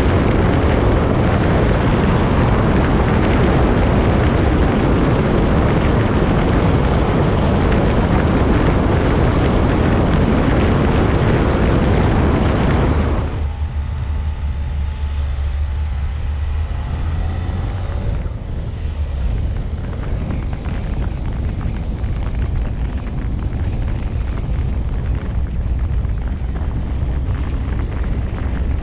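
Car driving: a loud steady rush of wind and tyre noise at highway speed, then, about halfway through, a sudden change to a quieter low rumble as the car rolls along a narrow, cracked rural lane.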